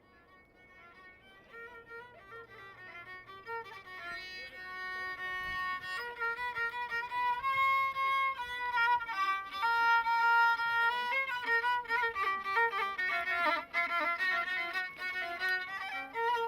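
A violin melody fading in from faint and growing louder over the first several seconds, mixing long held notes with quick ornamented runs.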